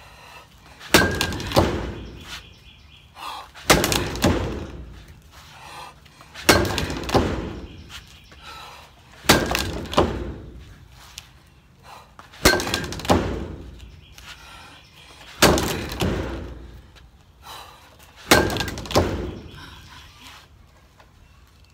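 Softball bat hitting the tethered ball of a SKLZ Hit-A-Way swing trainer, seven sharp hits about three seconds apart. Each hit is followed by a fading clatter as the ball whips around the post on its cord.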